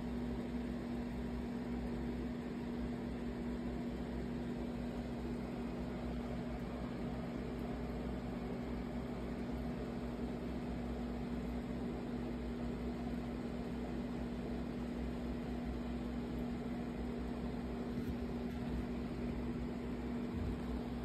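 Steady machine hum with one constant low tone over a soft even hiss, unchanging throughout.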